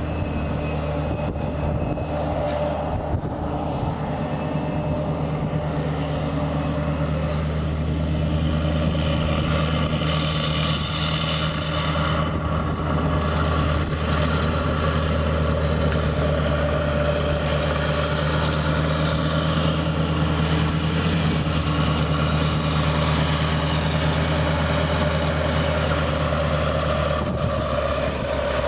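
Cat Challenger MT865B tracked tractor's 510 hp Caterpillar C18 diesel running steadily under load while it pulls a Super Simba press disc cultivator through stubble. The engine grows louder from about a third of the way in as the tractor draws closer.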